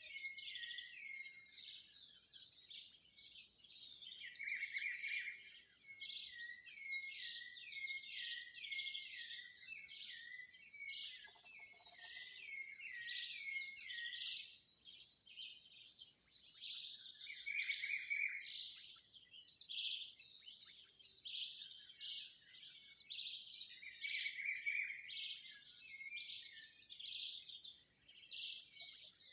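Dawn chorus of many birds in a dry field: a run of short, hooked chirps with a few louder bursts of song, over a steady high insect trill.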